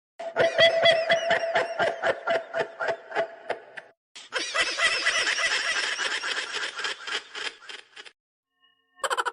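Two recorded laughter sound effects, one after the other: first a laugh in quick regular pulses, then after a short break a higher, denser laugh that cuts off suddenly about eight seconds in.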